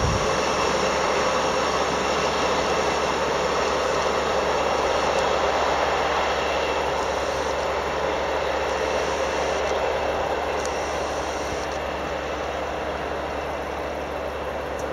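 Electric locomotive-hauled train that has just passed the platform running away along the track, its steady rumble slowly fading.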